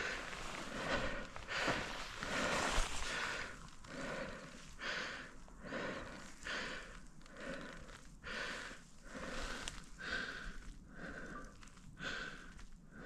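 A person breathing hard and fast, a hissing in-and-out breath roughly every half second.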